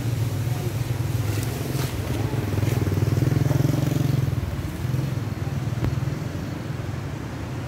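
Engine of a passing motor vehicle, a low pulsing note that swells about three seconds in and then fades away.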